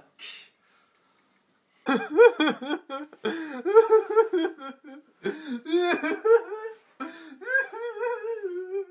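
A man's high, wordless wailing in four long cries with short breaks, the pitch wavering and bending throughout; the last cry is held and sinks slightly.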